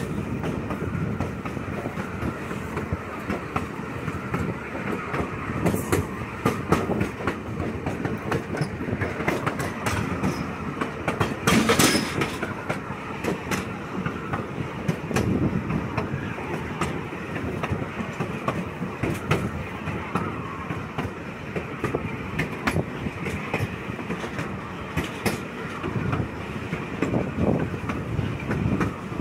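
Riding in an open gondola car of a heritage train: steady rumble of the moving car with wheels clicking and clanking over the rail joints, and one brief louder clash about twelve seconds in.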